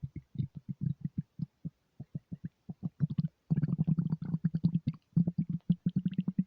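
An empty stomach rumbling and gurgling in a fast, stuttering run of low pulses, scattered at first and packed closely together from about three and a half seconds in.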